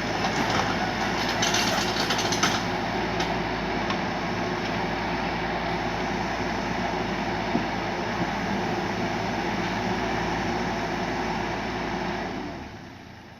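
Kubota U35 mini excavator running steadily, with a rattling clatter in the first couple of seconds; the sound fades out near the end.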